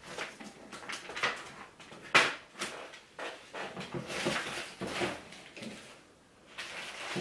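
Rummaging through a box of products: irregular rustling and handling knocks, with one sharp knock about two seconds in.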